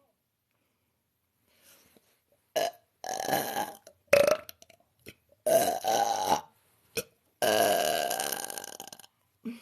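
A woman belching, a run of about seven burps. Several are short and sharp; two run about a second, and the longest, near the end, lasts nearly two seconds and trails off.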